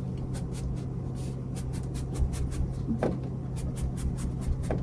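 Hands rubbing and pressing headliner fabric up against the glued ceiling: a run of quick, soft scratchy strokes, several a second, with a couple of light taps, over a steady low hum.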